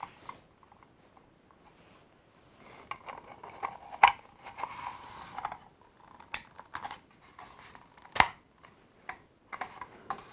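Hard plastic parts of the Carbon-Freezing Chamber playset being handled and pressed together: scattered small clicks and rubbing, with three sharp clicks, the loudest about two thirds of the way through, as a piece snaps into place.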